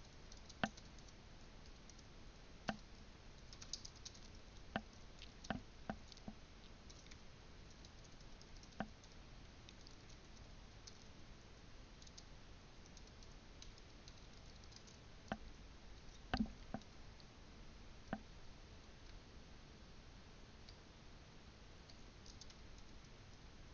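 Faint, scattered computer keyboard clicks as a command is typed, with long pauses between keystrokes and a few clicks bunched together about five seconds in and again around sixteen seconds.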